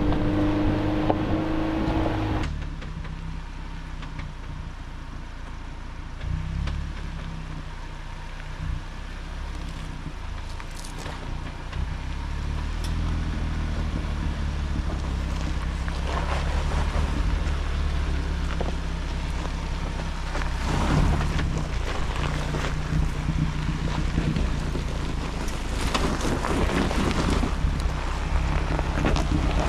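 Ford Bronco's engine running low and steady as the SUV crawls over a rutted dirt trail. Tyre noise on dirt and gravel comes in bursts about halfway through and again near the end.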